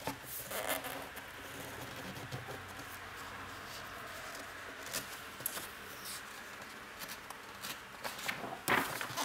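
A hand sliding and resting on the glossy pages of a large book, with soft paper rustles and light ticks. A louder paper rustle comes near the end as a page is lifted to turn.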